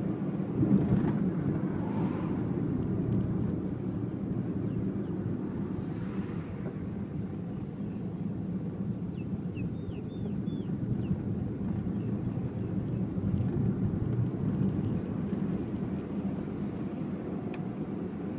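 A car driving, with the engine and tyres making a steady low rumble and a swell about a second in. A few faint high chirps come about ten seconds in.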